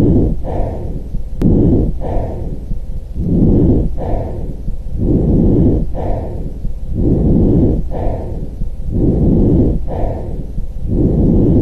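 Lung breath sounds from an auscultation recording: muffled breathing that swells and fades in a steady rhythm, about one breath every two seconds.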